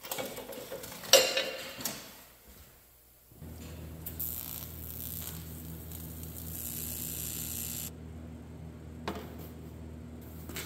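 Aluminium pieces clattering as they are set on a steel table, then a TIG welding arc tacking aluminium: a steady electric buzz with a hiss over it. The hiss stops about eight seconds in while the welder's hum runs on briefly.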